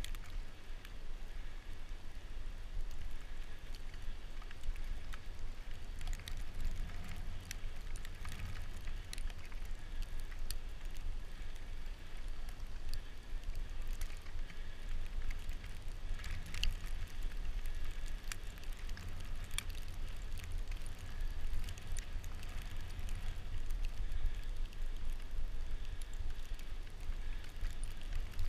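Steady low wind rumble on a bicycle-mounted action camera's microphone while riding over a snow-covered road, with the faint hiss of tyres on snow and scattered small ticks throughout.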